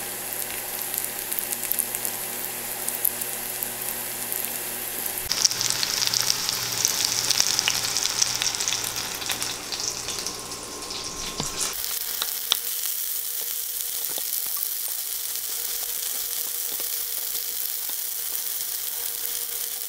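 Breaded fish fillets frying in hot oil in a stainless steel skillet: a steady sizzle with small crackling pops, shifting in tone twice.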